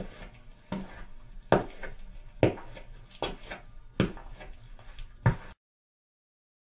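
Evenly paced footsteps on a hard corridor floor, roughly one step every 0.8 seconds, each landing a sharp tap with a short ring of the corridor. They cut off abruptly near the end.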